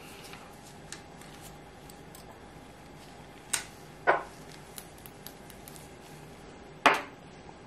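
Sharp clicks and taps of small hard objects being handled on a tabletop, such as gel polish bottles and nail tools. Three loud ones come about three and a half, four and seven seconds in, with a few lighter ticks between, over a faint steady hum.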